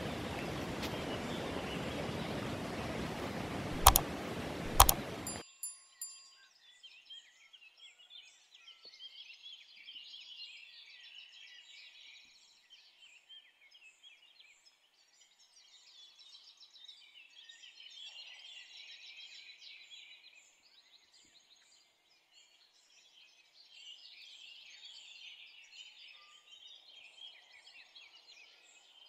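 Loud, even rushing noise of wind and sea on the microphone, with two sharp clicks. About five seconds in it cuts off abruptly to faint, steady chirping of many small birds.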